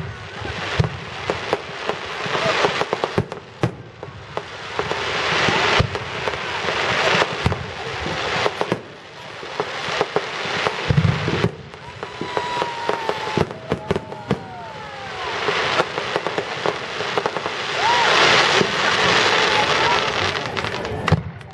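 Fireworks display: many sharp bangs of aerial shells bursting, some in quick runs, over waves of dense crackling hiss that swell and fade every few seconds.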